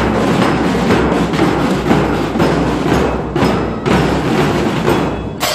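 Marching drum band of side drums and bass drums beating a steady marching rhythm, with a sharp loud hit right at the end.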